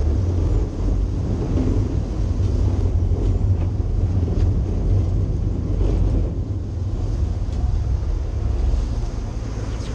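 Sportfishing boat under way: a steady low engine rumble mixed with wind buffeting the microphone and the wash of water churned up behind the stern.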